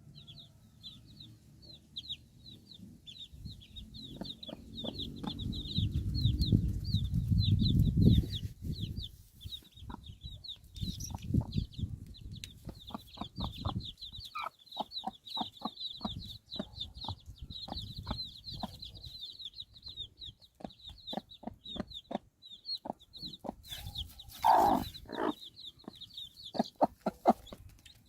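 Chickens clucking in short, repeated notes, with one louder squawk near the end, over a constant fast, high chirping. A low rumble builds for a few seconds early on and then stops abruptly.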